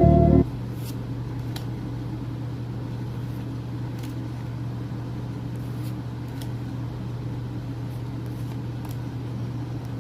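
Background music cuts off abruptly about half a second in. It leaves a steady low hum of room noise with a few faint, scattered ticks.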